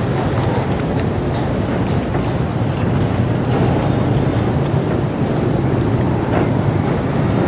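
Passenger ferry passing close, its engine a steady low hum under a constant wash of water and wind noise.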